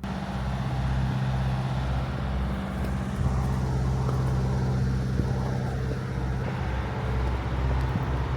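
A vehicle engine running at a steady speed, with a low pulsing throb under a steady hum.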